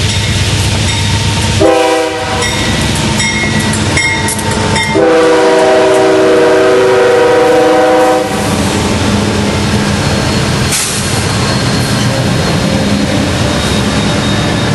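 Diesel locomotive air horn blowing a short blast about two seconds in, then a long blast of about three seconds, as the locomotive passes close by. After that comes the steady rumble and wheel clatter of the passenger cars rolling past.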